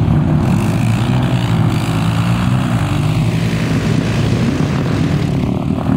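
ATV engine running steadily under load as the four-wheeler churns through deep mud.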